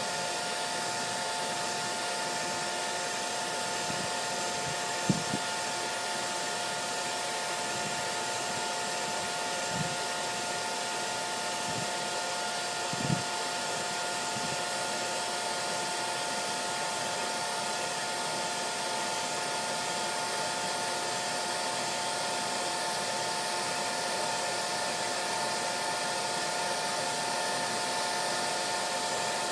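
Hair dryer running steadily, a constant airy hiss with a steady whine in it. A couple of brief faint knocks come through about five and thirteen seconds in.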